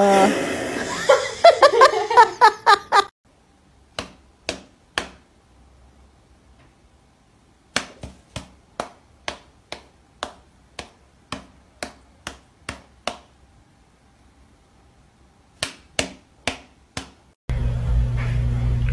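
A run of sharp smacks, a cat's paw slapping against a person's open hand, coming in bursts at about two a second. A voice-like sound runs at the start, and a steady low hum comes in suddenly near the end.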